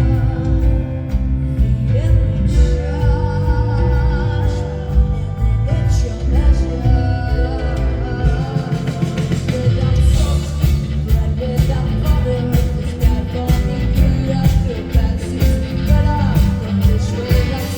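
Live rock band playing with a woman singing, heavy bass and drums, recorded loud in a concert hall; the drums and cymbals pick up about ten seconds in.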